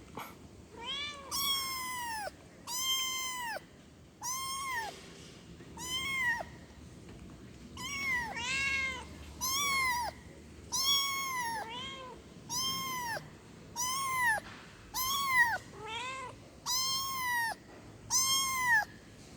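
A kitten meowing over and over to call its mother: a string of about eighteen short, high-pitched meows, roughly one a second, each rising then falling in pitch.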